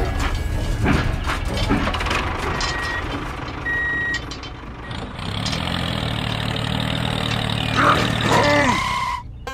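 Dubbed vehicle sound effects: a train clattering away, with two short beeps, then a tractor engine running steadily from about halfway through. A short voice-like call near the end.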